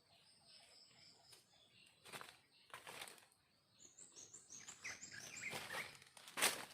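Dry leaf litter rustling and crunching in short bursts, loudest near the end. About four seconds in, a small bird gives a quick run of high chirps.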